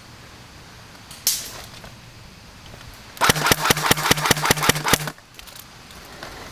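Airsoft electric gun (AEG) firing a rapid string of about eleven shots over roughly two seconds, each sharp crack over a steady motor-and-gearbox hum. A single sharp snap comes about a second in.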